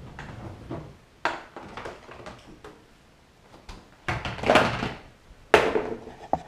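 Knocks, rattles and thumps of a baby stroller being pushed and bumped about on a hardwood floor: a sharp knock about a second in, a louder rattling stretch past the middle, and a sudden thud soon after.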